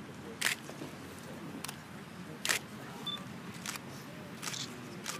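Camera shutters clicking: about five single shots at irregular intervals, the loudest about half a second and two and a half seconds in. A short high beep sounds a little after three seconds in.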